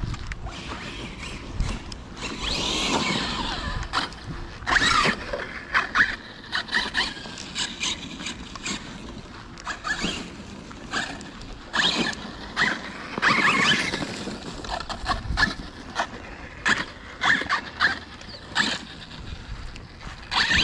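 Electric RC car driving in short bursts of throttle, its motor whine rising and falling again and again, with frequent sharp knocks and clicks.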